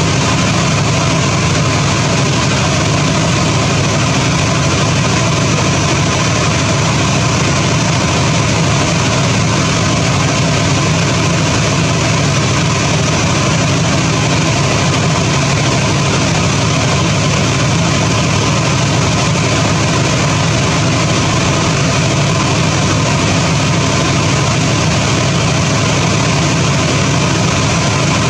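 An engine running at a steady idle, a low, even drone that does not change in level or pitch.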